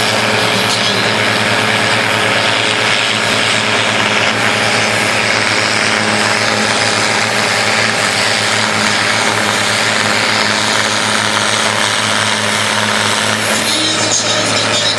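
Pulling tractor's engine running loud and steady under power.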